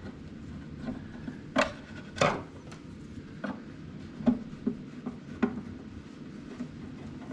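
Scattered light clicks and knocks of small metal hardware and wood being handled as a wooden machinist's tool chest is taken apart, the two sharpest about one and a half and two seconds in, over a faint steady hum.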